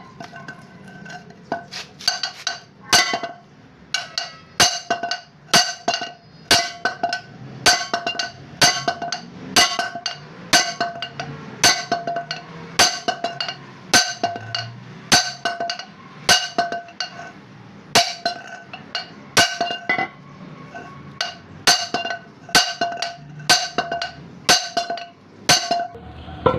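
A large hammer striking the steel yoke of a vehicle propeller shaft over and over, about two blows a second, each blow with a metallic ring. The blows are driving apart a stubborn cross joint (universal joint).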